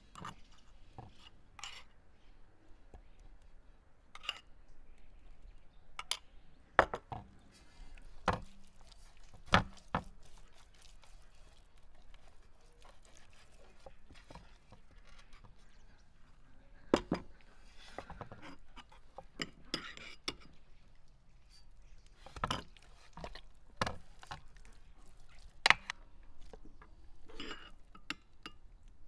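Raw whole chicken being handled and washed by hand in a large metal basin with a little water: scattered knocks and clinks against the basin and wooden board, a handful of them sharp and loud, between quieter wet rubbing and handling noises.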